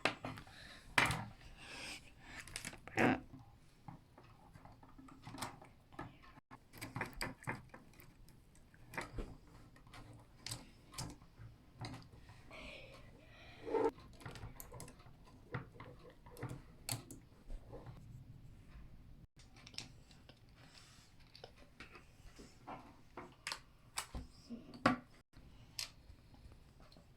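Meccano Junior construction-toy pieces clicking and clattering as they are handled and fitted together: irregular sharp clicks throughout, with a few louder knocks.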